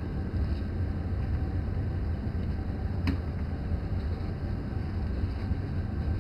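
Steady low machine hum, with one short click about three seconds in.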